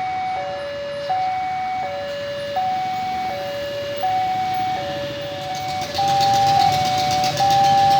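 Electronic two-tone warning siren of a railway level crossing, steadily alternating between a higher and a lower tone, each held about three-quarters of a second. About six seconds in, the tones overlap and a louder rushing noise with a low rumble rises beneath them.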